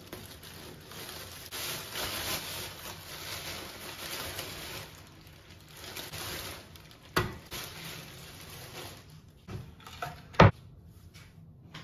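Thin plastic carrier bag rustling and crinkling as it is untied and groceries are pulled out, then a sharp knock about seven seconds in and a louder one near the end as things are set down on a wooden cutting board.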